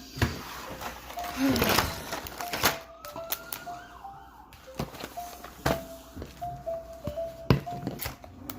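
A simple tune of short, high single notes, probably music laid over the video, with several sharp knocks and a brief rustle about two seconds in.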